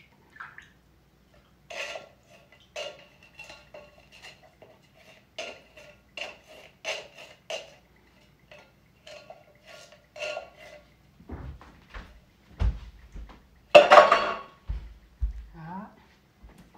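Metal kitchenware clinking and scraping: a can, cup and utensil knocking against a saucepan as ingredients are emptied into it, a string of short ringing clinks. Near the end come a few dull thumps and one loud clatter.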